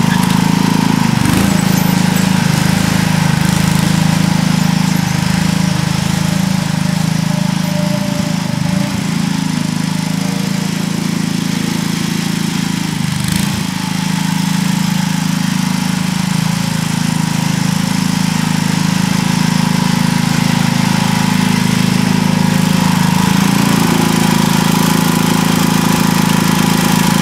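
Sears ST16 garden tractor's engine running steadily while plowing, its pitch dipping briefly a few times.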